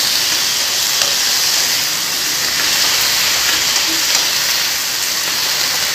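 Freshly added chopped tomatoes, onion, garlic and green chillies sizzling in oil in a frying pan: a steady frying hiss as the vegetables are sautéed.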